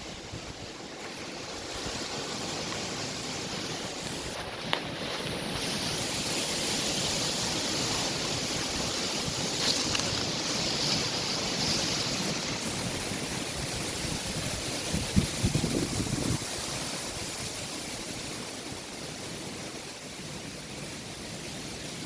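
Very strong wind blowing in a long gust, swelling after a couple of seconds and easing off toward the end, with a few brief knocks in the middle.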